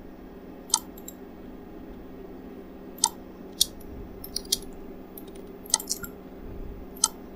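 Several scattered, sharp computer mouse clicks, a few of them in quick pairs, over a faint steady electrical hum.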